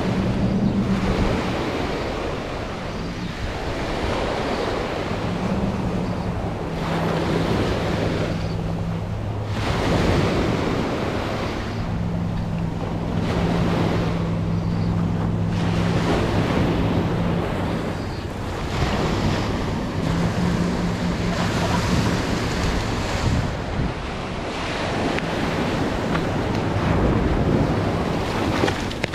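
Small surf breaking and washing up a sandy beach, rising and falling in surges, with wind buffeting the microphone. A low steady hum comes and goes underneath.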